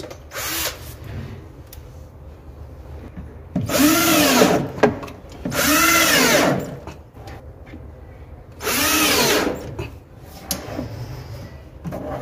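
Cordless drill driving small black half-inch screws through a metal drawer slide into the cabinet's side panel: three runs of about a second each, near the middle and about three-quarters of the way in, the motor's whine rising and then falling in pitch each time, with light clicks of handling in between.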